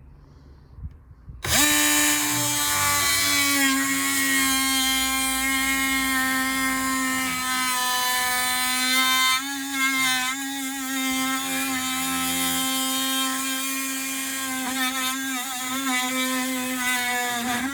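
Dewalt oscillating multi-tool with a wood blade cutting through a pallet board. It buzzes steadily at a constant pitch from when it starts, about a second and a half in, until it cuts off just before the end. The pitch sags slightly in places as the blade binds in the wood.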